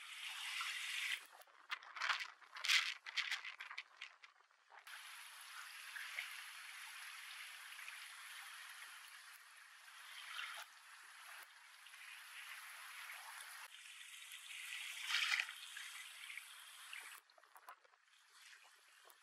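Steady rushing of flowing river water, with a few short louder bursts in the first few seconds and a louder swell about fifteen seconds in.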